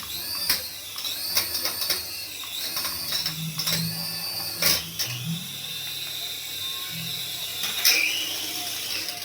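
Small electric motor of a toy RC helicopter whining, its pitch dipping and rising again and again as the throttle changes, with scattered sharp clicks and knocks.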